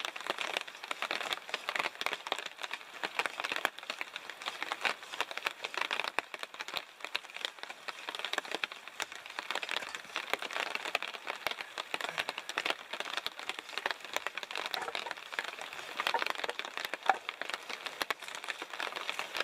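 Steady rain pattering: a dense, even stream of small drop ticks.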